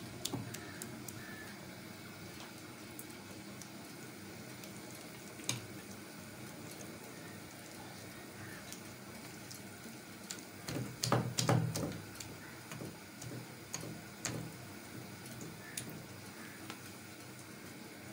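Hands working thick wet masala paste onto raw fish pieces: faint squelching with scattered small clicks against the bowls, and a louder bout of handling a little past the middle.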